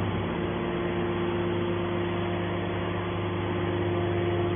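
Aluminum can baler running, a steady machine hum with a few constant tones and no change in pitch or level.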